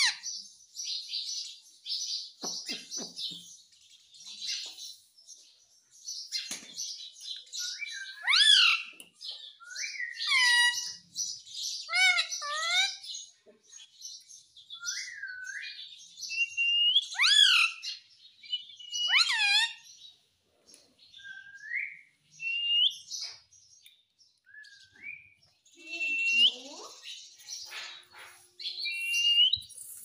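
Indian ringneck parakeet calling: a fast run of high chirps, then a series of loud, clear whistled notes that swoop up and down, with fewer, scattered calls toward the end.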